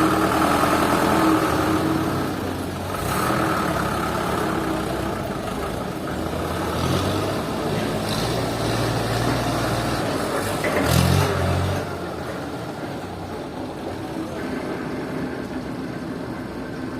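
Heavy machinery engine running steadily, with a louder burst a little after eleven seconds.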